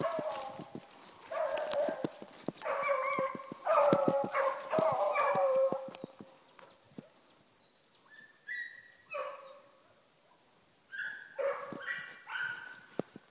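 A pack of beagles giving tongue, hunting a hare by scent: drawn-out baying notes, several hounds overlapping, strongest in the first six seconds, then fading. More scattered notes come again in the last few seconds.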